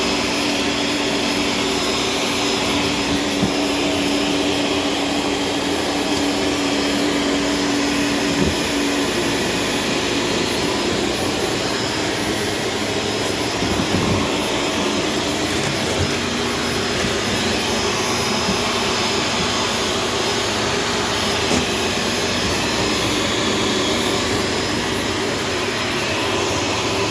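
Self-cleaning Shark vacuum cleaner running steadily as it is pushed over a bathroom floor picking up hair. A steady hum in its sound stops about nine seconds in, and there are a few light knocks.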